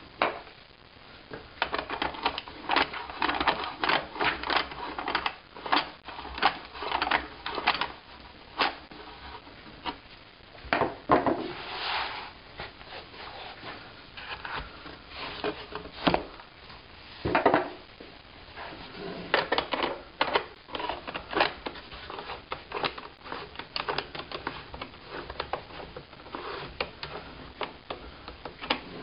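Irregular clicking, tapping and knocking of hand work on a plywood book-scanner cradle: a screwdriver turning the screws of its metal clamps, and a hardcover book being set and pressed down on the boards. The clicks come in dense runs, with a few heavier knocks about halfway through.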